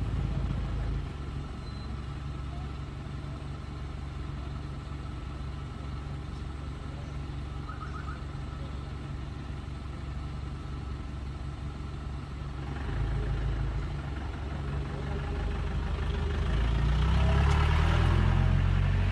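A motor vehicle's engine idling steadily, with the engine sound swelling louder over the last few seconds.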